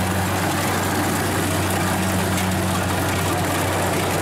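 Kubota DC-70 rice combine harvester running steadily under load as it cuts and threshes rice: a constant low drone from its diesel engine and threshing machinery.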